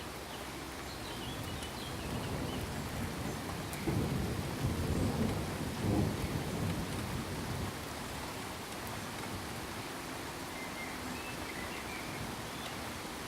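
Steady rain falling, with a roll of thunder that builds from about two seconds in, peaks twice, around four and six seconds, and dies away by about seven and a half seconds.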